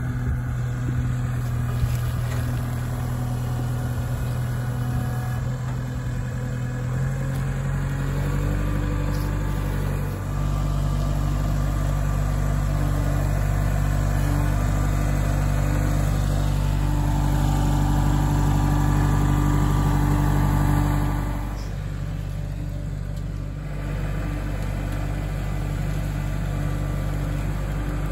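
Kubota compact tractor's diesel engine running steadily as it moves a load on its front-loader forks. The engine speeds up about eight seconds in and drops back to a lower speed about twenty-one seconds in.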